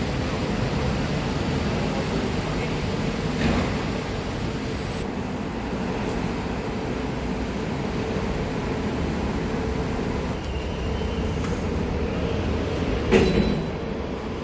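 Steady city background noise, a low traffic-like rumble, with a brief knock near the end.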